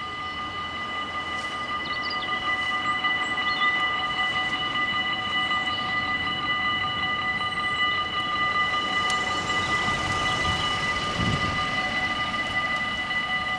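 Level-crossing warning bells ringing steadily at a Dutch AHOB crossing, a bright ringing tone that grows a little louder over the first few seconds. A car's engine rumbles close by around ten to eleven seconds in.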